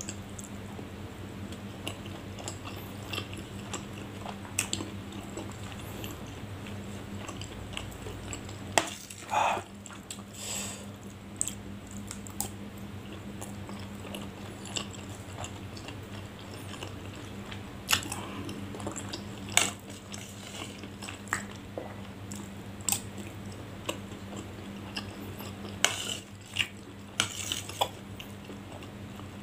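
Close-miked chewing of soft, saucy tapioca snacks, with a metal spoon now and then clinking and scraping against the serving dish in sharp clicks. A steady low hum runs underneath.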